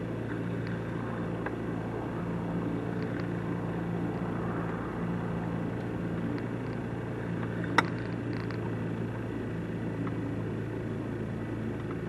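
Boat motor running steadily at trolling speed, a constant low hum, with a single sharp click a little under eight seconds in.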